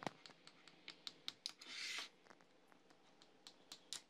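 Faint clicks and light scraping of a knife cutting lengthwise through a fridge-set no-bake biscuit cake in a plastic tray, with a short scrape just under two seconds in.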